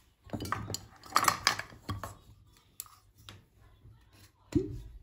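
Glass jars with bamboo lids and a glass detergent bottle clinking and knocking as they are handled, picked up and set down: a run of short, irregular clinks, with a louder hollow knock about four and a half seconds in.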